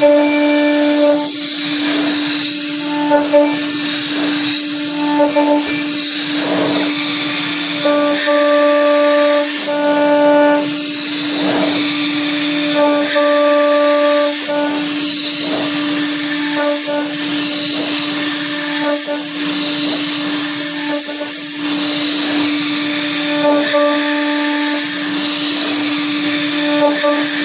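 CNC milling spindle cutting aluminium, running with a steady high hum under the hiss of mist-coolant air. A higher whine comes and goes every second or two as the cutter works through the passes.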